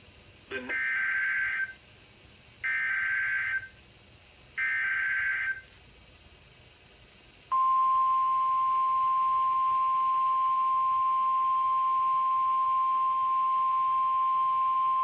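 Three one-second bursts of SAME digital header data, warbling buzzy tones, about a second apart, then NOAA Weather Radio's steady 1050 Hz warning alarm tone starting about halfway through. Together they signal the start of a new warning broadcast, here a severe thunderstorm warning.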